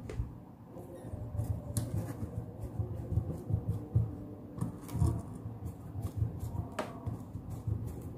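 Hand screwdriver turning a small screw to fasten a circuit board to a PVC bracket. There is uneven rubbing and handling noise with a few sharp small clicks.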